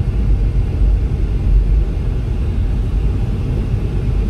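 Steady low rumble of a car driving slowly over an unpaved road, engine and tyre noise heard from inside the cabin.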